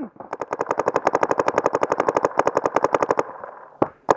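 Paintball marker firing in rapid strings, about a dozen shots a second for about three seconds with a brief break in the middle, then two single shots near the end.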